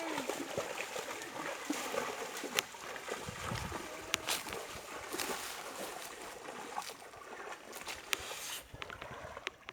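Shallow pond water splashing and sloshing as people wade and work in it, with scattered sharp clicks and taps.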